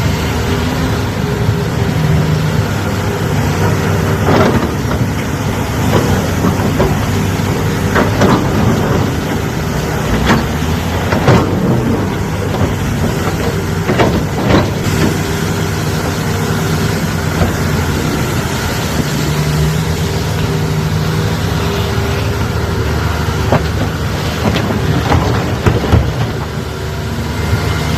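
Excavator's diesel engine running steadily while it loads, with scattered sharp knocks and clanks throughout.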